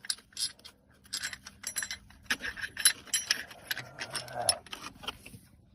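Metal hand tools clicking and clinking against a bolt as it is worked loose from a car's starter mount: a quick, irregular run of sharp metallic clicks that stops just before the end.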